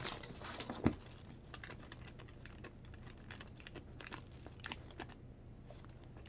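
Faint, irregular typing and clicking at a computer, with one sharper click about a second in.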